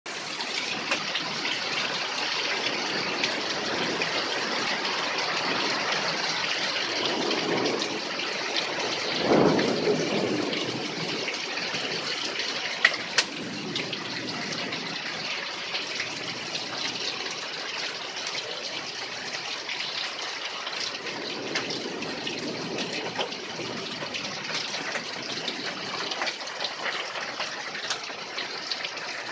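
Heavy rain pouring down steadily, with runoff gushing off a roof overhang. The rush swells for a moment about nine seconds in, and there is a single sharp tick around thirteen seconds.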